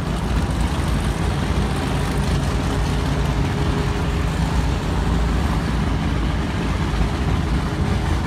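Steady low rumble of big performance-powerboat engines running at low speed.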